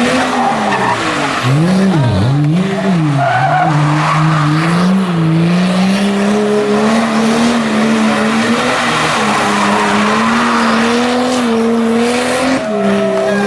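Drift car's engine revving hard, its pitch swinging up and down over the first few seconds and then held high, with a brief drop near the end, as the tyres squeal through a sustained slide.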